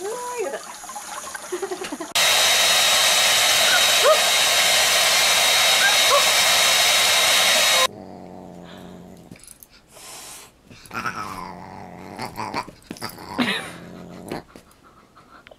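A loud, steady rushing noise for about six seconds that cuts off abruptly. Then a dog grumbles and whimpers in short rising and falling sounds while play-fighting with a cat.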